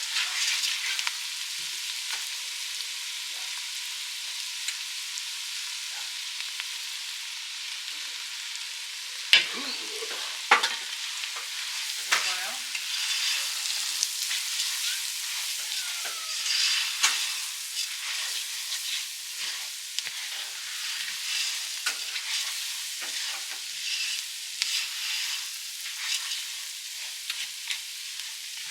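Food sizzling as it fries in a pan, with a utensil stirring and knocking against the pan. There are two sharp knocks about nine and ten and a half seconds in.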